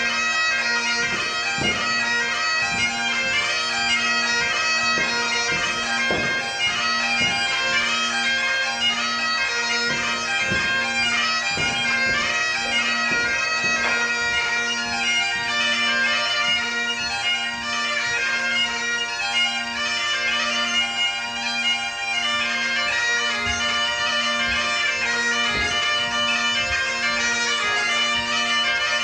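Highland bagpipes playing a dance tune over steady drones, with irregular knocks of dancers' steps on a wooden floor underneath.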